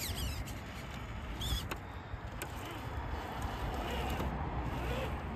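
Traxxas TRX-4 RC crawler's electric motor and drivetrain whirring in short bursts of throttle as it crawls over dirt and rock, with brief whines and a few sharp clicks of the tires and chassis against the ground.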